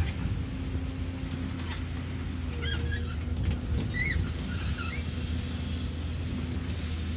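Excavator diesel engine running at a steady drone, with a few short high chirps about three to four seconds in.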